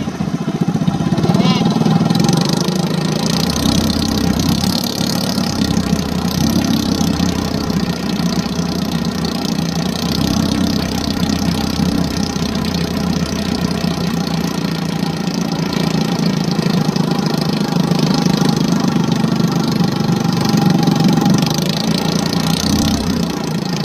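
An engine running steadily at a constant speed, a continuous low hum throughout.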